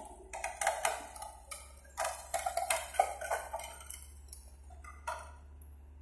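Timber and sheet metal of a sawmill shed cracking and clattering as a Hitachi crawler excavator pulls the frame down: a string of irregular sharp knocks over the first few seconds and one more about five seconds in, with the excavator's engine running low beneath.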